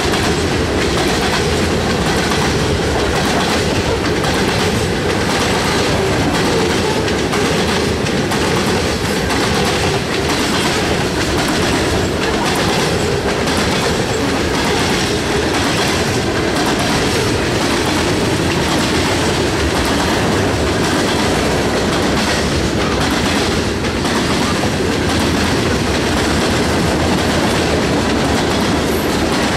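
Freight cars rolling past at close range, covered hoppers and then tank cars: a steady rumble of steel wheels on rail with repeated clickety-clack as the wheels cross rail joints.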